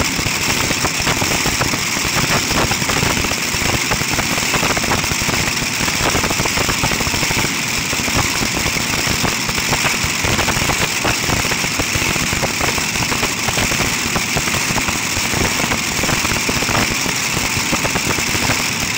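Modified tractor puller's two Keith Black V8 engines running at a steady, loud idle: a dense, rapid train of exhaust pulses with no revving.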